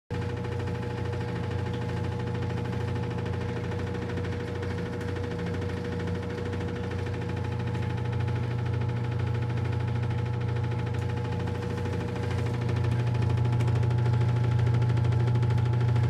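Steady mechanical hum of a running motor: a low drone with a fainter steady whine above it, growing a little louder about twelve seconds in.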